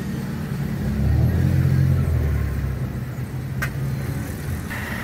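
Car driving in traffic, heard from inside the cabin as a steady low rumble. The rumble swells louder about a second in and eases off before the halfway point. A single sharp click comes a little past halfway.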